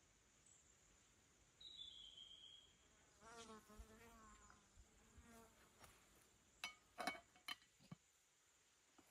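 Faint, quiet bush with a flying insect buzzing for about two seconds near the middle. Before it comes a single short falling whistle, and near the end a few sharp clicks.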